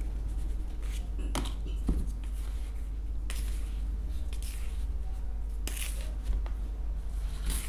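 A hand stirring through dry powdered bird hand-feeding mix in a plastic tin, giving scattered rustling and scraping with a few light knocks against the plastic, over a steady low hum.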